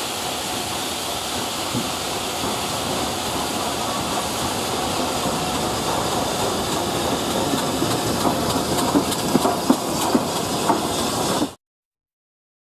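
BR Standard Class 5 4-6-0 steam locomotive running into a station with its carriages: a steady hiss that grows slowly louder as it approaches, with a run of sharp clicks from the wheels near the end. The sound cuts off suddenly shortly before the end.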